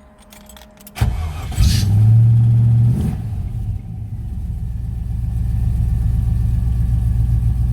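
Ford Capri's V8 engine started from cold: it cranks about a second in, catches, runs at a higher fast-idle speed for a moment, then drops about three seconds in to a steady idle.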